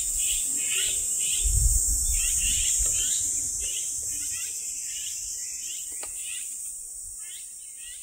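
Steady high-pitched drone of insects, with a run of short falling chirps repeating about two to three times a second; the whole sound slowly fades toward the end.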